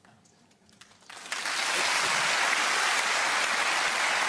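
Studio audience breaking into applause about a second in, then clapping steadily and densely.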